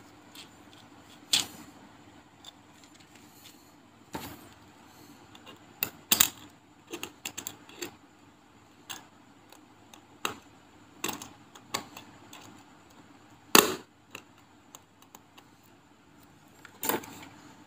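Small sharp metallic clicks and taps of steel tweezers working on a button-cell battery in an open wristwatch case during a battery change, scattered and uneven, with the loudest click about three-quarters of the way through.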